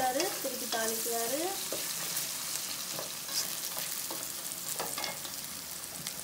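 Onions and chillies sizzling in hot oil in a metal kadai while a spatula stirs and scrapes them around the pan, with a few knocks against the metal. A few short pitched squeaks that glide up and down come in the first second and a half.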